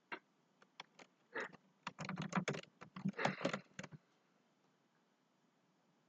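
Typing on a computer keyboard: a scattering of key clicks that grows into a quick run between about two and four seconds in, then stops.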